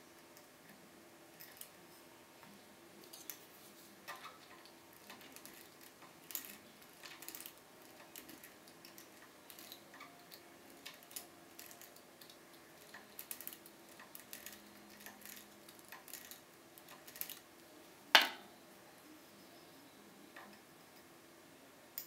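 Faint metallic clicks and light scraping of lock picks working inside the keyway of a Keso 2000 lock cylinder, with one sharper, louder click late on.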